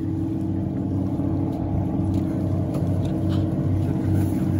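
Boat engine running steadily, an even low hum with no change in pitch, with a few faint knocks from a trap line being hauled up by hand.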